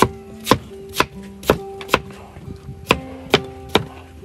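Steel cleaver chopping peeled root crop on a wooden chopping block: eight sharp chops, about two a second, with a short pause after the fifth.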